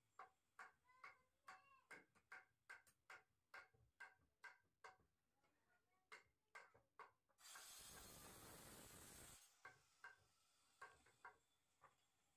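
Hand tools knocking on wooden window-frame timber: a run of sharp knocks, two or three a second, some with a short ring. About two-thirds of the way through they are broken by a two-second rush of noise.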